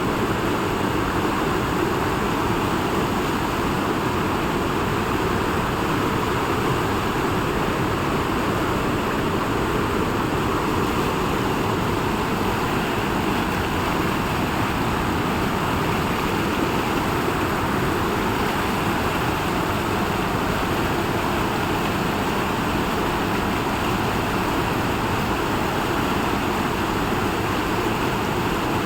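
Steady rush of flowing water, an even noise that holds at one level throughout with no breaks.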